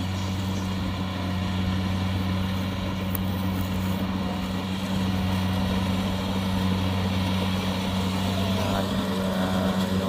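Kubota DC70 combine harvester's diesel engine running steadily as it cuts rice, a constant low hum with no change in speed, the machine working through soft, sinking ground. A brief click about three seconds in.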